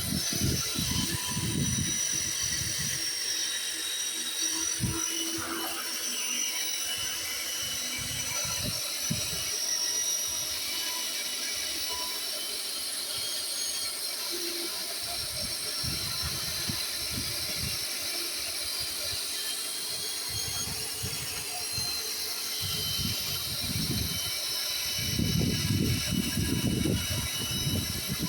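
Earth well-drilling machine running: a steady high-pitched mechanical whine with irregular low knocks and rumbles, which grow heavier near the end.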